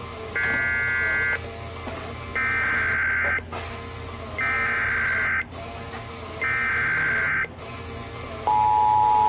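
Emergency Alert System tones: four roughly one-second bursts of warbling SAME header data, then the steady two-tone EAS attention signal starting near the end, all over a faint low hum. They mark the start of an EAS alert, here a river flood warning.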